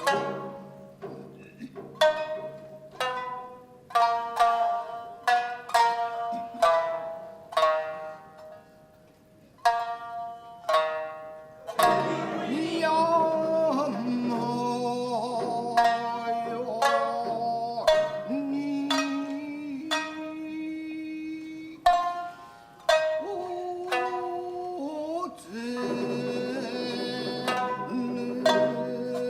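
Tokiwazu music: shamisen playing separate plucked notes, then from about halfway a chanter's long, wavering vocal line over the shamisen, with a brief return to plucked notes alone near the end.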